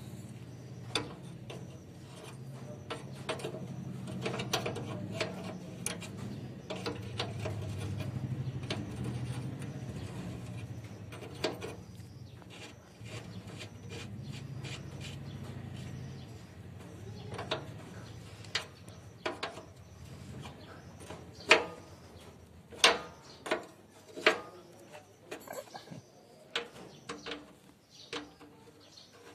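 Metal tools clinking and knocking against fittings on the machine's underside in irregular sharp knocks, the loudest a little past the middle and toward the end. A low hum sits under the first half and then fades.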